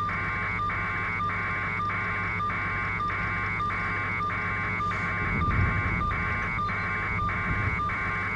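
Electronic buzz on a phone or radio audio line: a harsh cluster of tones pulsing about twice a second over a steady low hum. It is interference on the feed, with a low rumble swelling briefly about five seconds in.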